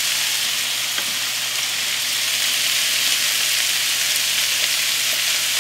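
Zucchini wedges and diced onion sizzling steadily in hot olive oil in a skillet.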